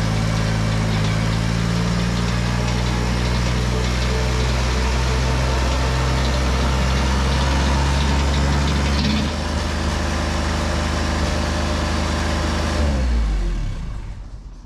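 Bobcat 463 skid steer's diesel engine running steadily. About nine seconds in its note shifts, and near the end the engine note falls in pitch and dies away.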